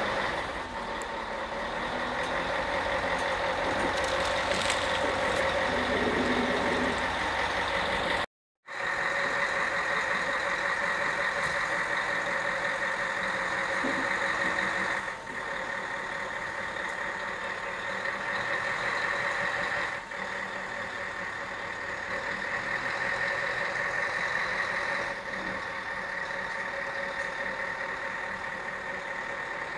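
Steady electronic warning tone from heavy-haulage vehicles moving a bridge span, over the low running of diesel truck engines. The sound drops out completely for a moment about eight seconds in.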